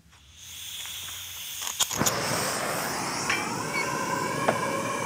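Handheld gas torch being lit and run: gas starts to hiss, two sharp clicks come just under two seconds in, then the burner's flame runs with a steady rush. A steady tone joins in about three and a half seconds in, as the flame is aimed into the steel pipe, with a few light clinks of metal.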